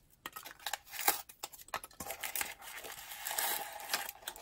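Corrugated cardboard packaging being torn and pulled apart by hand: irregular crackles and rips, then a longer continuous tearing rasp from about halfway through.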